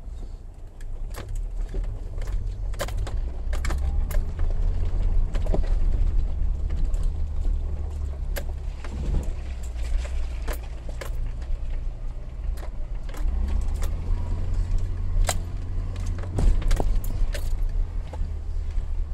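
Vauxhall Frontera 2.0 Sport driving off-road, heard from inside the cabin: a steady low engine and drivetrain rumble, with frequent sharp knocks and rattles as it bounces over rough, stony ground.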